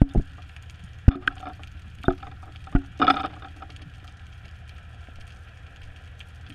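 Underwater sound picked up by a GoPro inside its waterproof housing hanging on a line: a steady low hum with sharp knocks and clicks, about six in the first three seconds and a short rattle about three seconds in, then only the hum.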